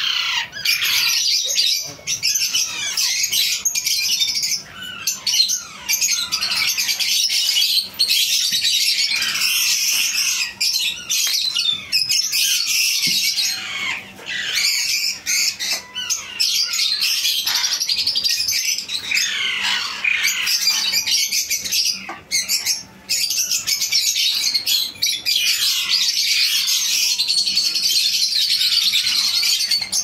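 A crowd of Alexandrine parakeet chicks calling without pause in a dense, shrill chatter, laced with many short falling squawks: the begging calls of hungry chicks at hand-feeding.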